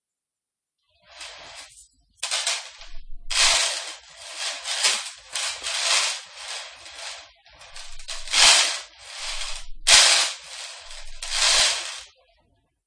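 Metal chains being handled, clinking and rattling in a string of jangles about a second long each with short breaks between, starting about a second in and stopping near the end.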